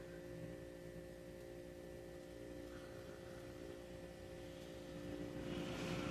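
Faint steady hum made of several steady tones. A soft rustle of yarn and hook being handled comes up near the end.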